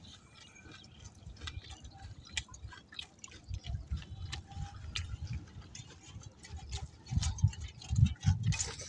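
River water lapping and dripping against the side of a small boat, with irregular small splashes and ticks and a few low bumps near the end.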